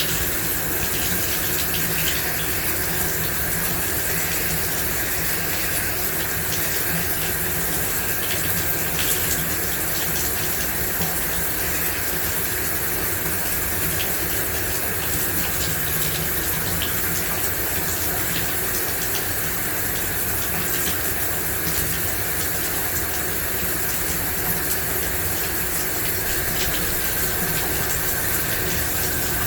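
Shower running: a steady spray of water drumming down in an even hiss, with faint splatters.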